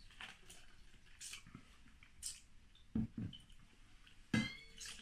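Wine being spat into an ice bucket used as a spittoon: a few short wet spurts about a second apart. Near the end comes a louder burst with a brief ring as the rest of the wine is tipped out of the glass into the bucket.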